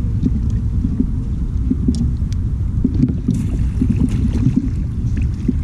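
Steady low rumble of wind and water noise on the microphone aboard a fishing kayak, with a few light knocks as a bass is netted.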